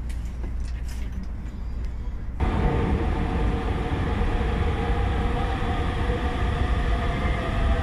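Low rumble inside a high-speed train carriage with a few light clicks. About two and a half seconds in it cuts to a louder electric train running alongside a station platform: a rumble with a steady whine of several tones.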